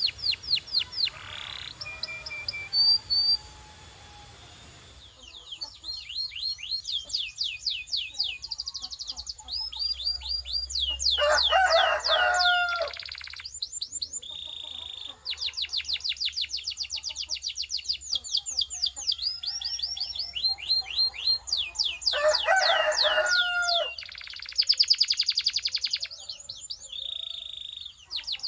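Domestic canary singing: long trills of rapidly repeated falling notes, switching from one trill to the next every second or two, with a lower, rougher phrase twice.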